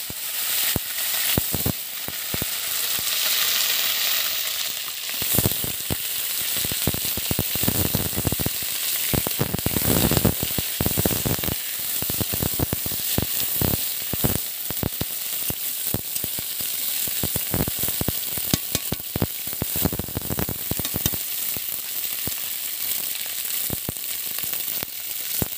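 Cauliflower florets frying in hot mustard oil in an iron kadai: a dense, steady sizzle full of small crackles, with a metal spatula stirring them now and then.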